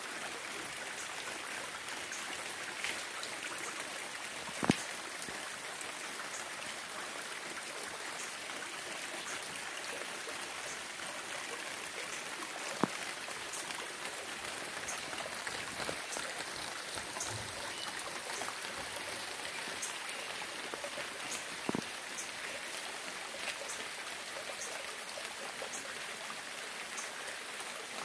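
Steady rain falling, with a few louder single drops striking sharply, the loudest about five seconds in.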